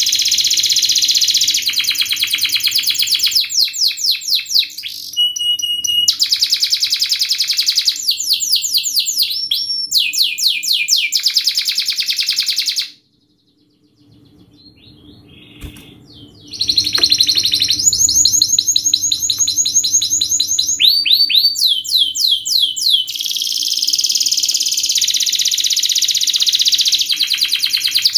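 Domestic canary singing a long song of fast, dense trills and rapid repeated high sweeps, changing from one trill type to the next every second or two. About halfway through it breaks off for roughly three seconds, with only a few faint notes, then starts again.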